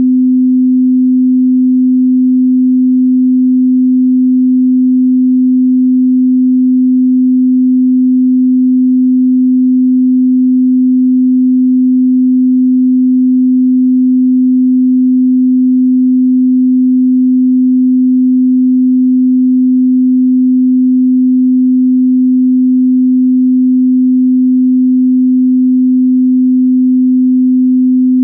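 A pure 255 Hz sine tone, held steady and unchanging at a constant level: an electronically generated test tone of the kind used to calibrate sound systems or instruments.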